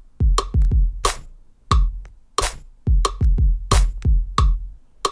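Teenage Engineering OP-Z playing electronic drum sounds: deep kick thumps and crisp snare hits about every two-thirds of a second, as different snares from its sound bank are tried on the keys.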